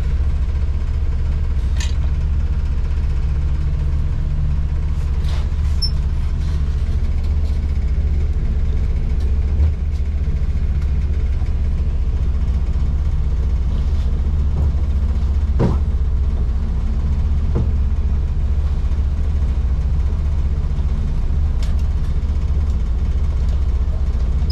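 Boat engine running steadily underway, a constant low drone heard from on board, with a few faint ticks.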